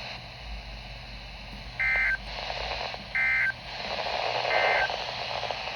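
Three short bursts of Emergency Alert System SAME digital data tones, a two-tone warbling chirp repeated about 1.3 seconds apart. Coming right after the spoken warning ends, they are the end-of-message code that closes the alert. Faint radio hiss runs underneath.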